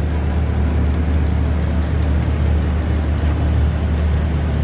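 Steady low hum and rumble of an observation-tower elevator car climbing slowly up the outside of the tower.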